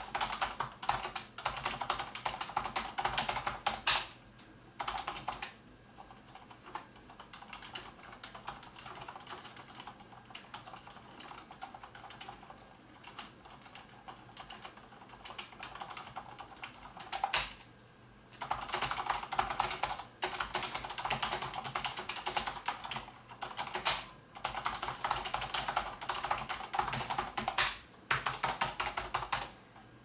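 Typing on a Skydigital NKEYBOARD Mechanic LED mechanical keyboard with Cherry MX Silent Red (low-noise linear) switches: a fast patter of keystrokes. It turns softer and lighter about four seconds in, then becomes fast and louder again from about eighteen seconds in, with a couple of brief pauses.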